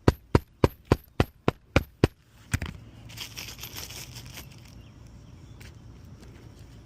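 A run of about eight quick, even hammer blows, roughly three a second, then one more. After them comes a brief crackling and tearing of old, brittle asphalt shingles being worked loose.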